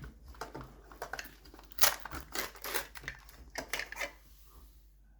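Small plastic packaging being handled and unwrapped by hand: irregular crinkles and clicks that thin out near the end.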